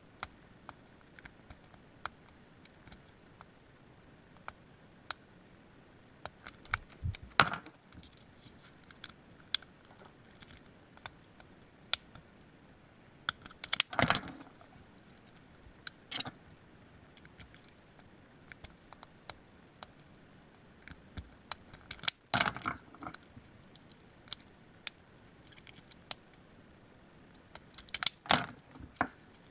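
Lock picks and a tension wrench clicking and scraping in brass Master Lock 141 pin-tumbler padlocks, with scattered sharp metallic ticks. Four louder bursts of clattering, about seven seconds apart, stand out above them.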